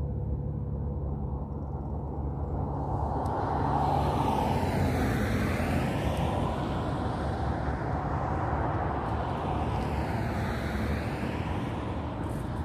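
Road traffic: two vehicles pass by in turn, each swelling to a whoosh and fading over a few seconds, over a steady low rumble.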